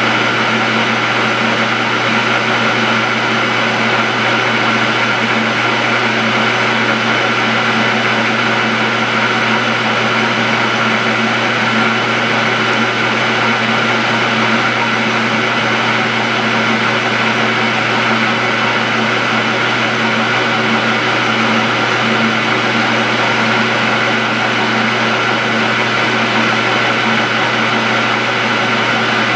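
Metal lathe running steadily, turning down a 12L14 steel bar with a light skim cut: an even machine hum with several steady tones that does not change.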